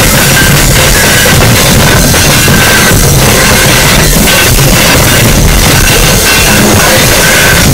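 Power electronics noise music: a loud, unbroken wall of distorted noise, with a short high whistling tone that keeps cutting in and out.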